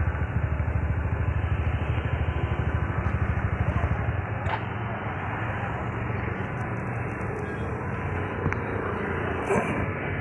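Small scooter engine running with a rapid, even low pulsing, which stops about four seconds in, leaving steady street noise with a few small clicks.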